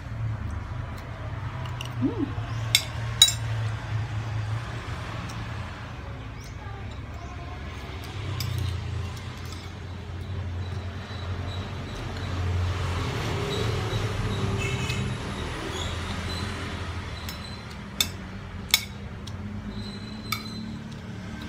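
Metal spoon and fork clinking against a plate while eating, a couple of sharp clinks about three seconds in and a few more near the end, over a steady low rumble.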